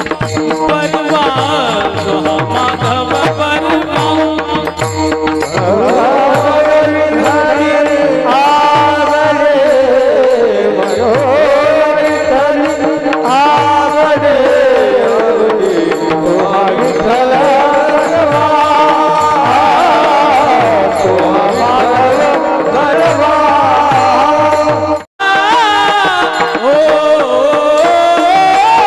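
Marathi devotional bhajan music: a melody carried on long, smoothly gliding notes with no clear words, over a steady hand-drum beat. The sound drops out for a moment about 25 seconds in.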